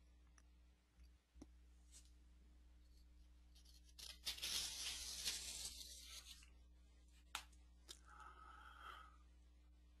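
Near silence, with a faint rustle lasting about two seconds near the middle and a few soft clicks after it.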